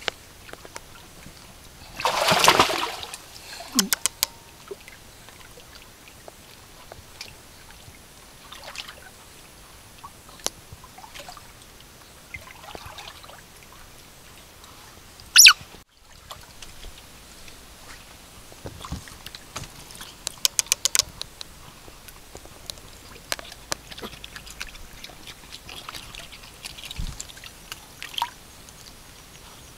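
Shallow creek water splashing and sloshing as Asian small-clawed otters swim and paddle through it, with scattered clicks and a few short, louder bursts: one lasting about a second near the start, and the sharpest about halfway through.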